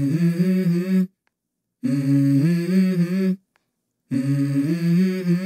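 Background music: a wordless hummed melody of long held notes stepping between a few pitches, in three phrases cut off abruptly by short silences.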